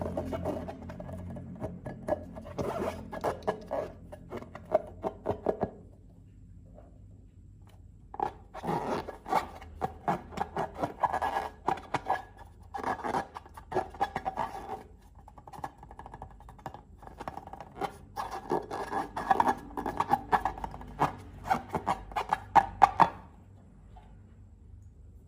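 Slime being squished and stretched by hand, in three bursts of dense crackly clicking and popping separated by short pauses.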